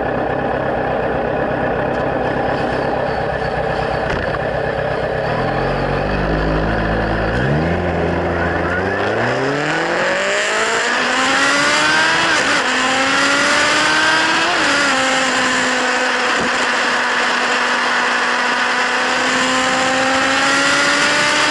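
Kawasaki Z1000's inline-four engine through LeoVince slip-on exhausts, running with a rough low rumble, then accelerating, its pitch climbing steadily over several seconds. The pitch dips briefly twice, then holds a high, slowly rising note.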